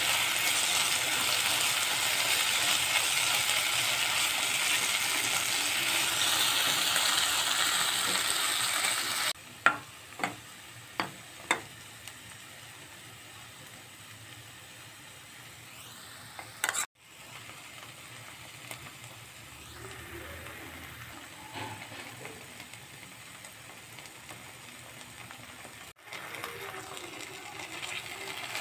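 Onion, capsicum and tomato masala sizzling in a nonstick kadai while being stirred with a spatula, loud for about the first nine seconds. It then drops much quieter, with four sharp taps a little over half a second apart, and the sizzling and stirring pick up again near the end.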